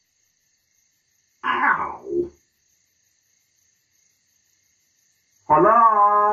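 Two short vocal sounds from a cartoon character. The first is a brief grunt in two parts, about a second and a half in. The second, near the end, is a wavering, whining moan about a second long.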